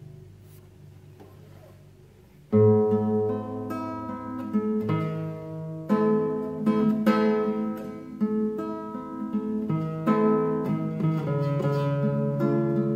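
Solo acoustic guitar playing plucked notes and chords, starting suddenly about two and a half seconds in after a faint low hum.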